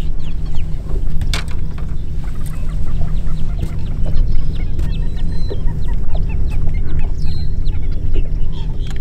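Many birds calling at once: a chatter of short, falling chirps and squawks over a steady low rumble, with a faint steady hum joining about halfway through.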